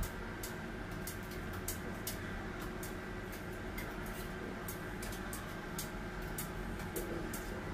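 Steady background hum with many scattered, irregular sharp high-pitched ticks.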